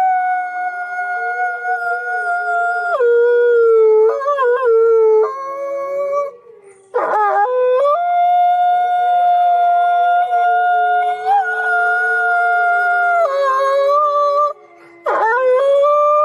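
Wolves howling together: two long, steady howls held at different pitches. Each howl now and then breaks and swoops to a new note. There are two brief lulls, one about halfway through and one near the end.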